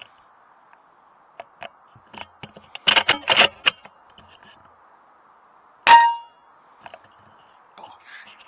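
An AGT Uragan 2 PCP air rifle in sub-12 ft-lb form: a quick cluster of loud mechanical clicks about three seconds in, then a single sharp shot a little before six seconds, followed by a brief metallic ring.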